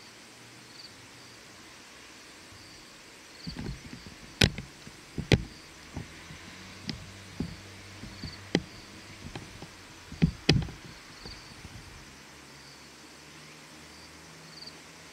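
A series of irregular knocks and clicks for about eight seconds, the loudest about four and a half and ten seconds in, over a faint steady hiss. A faint high chirp repeats about every second and a half.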